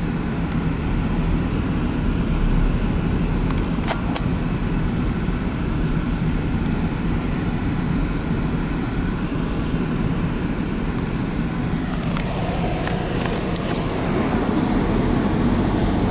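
Steady low rumble of vehicle noise, with a few brief clicks about four seconds in and again near the end.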